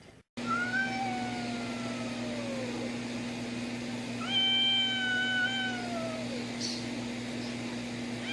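A cat giving two long, drawn-out meows, each sagging in pitch at the end, over a steady low hum.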